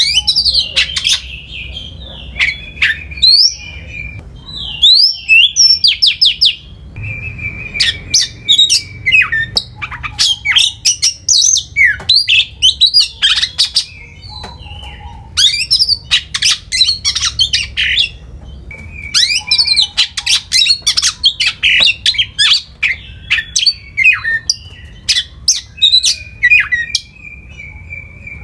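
A songbird singing loud, fast, varied phrases of chirps, trills and sweeping whistles with a few held high notes, broken by pauses of a second or two. A faint low hum runs underneath.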